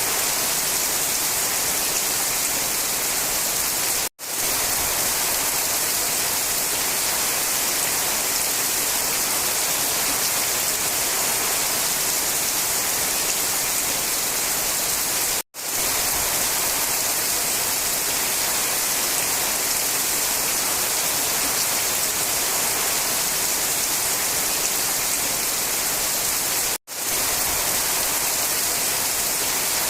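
Steady, even hiss of heavy rain. It cuts out to silence for an instant three times, about 11 seconds apart.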